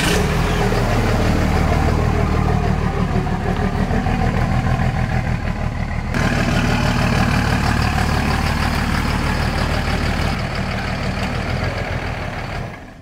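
Ford Super Duty pickup's engine running at low speed as the truck is driven off and moved, a steady low hum that fades near the end.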